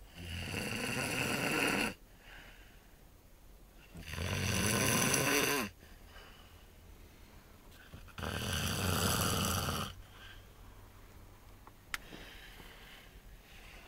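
A sleeping person snoring loudly: three long rasping snores about four seconds apart, with quieter breathing between them. A short sharp click about twelve seconds in.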